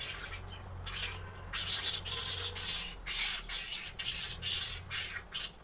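Pizza being eaten close to the microphone: a run of short, irregular crunching noises, about two a second.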